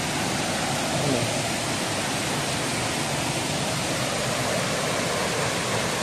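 Fast-flowing stream rushing steadily over rocks, with a brief faint voice about a second in.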